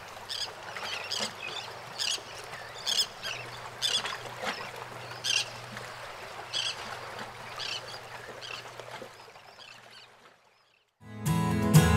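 Outdoor ambience with short, high bird calls repeating every half second to a second over a faint low hum, fading out after about nine seconds. After a brief silence, acoustic guitar music starts near the end.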